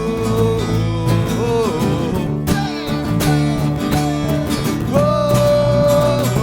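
Punk band playing live: guitars and bass, with a melody line that slides and bends between long held notes.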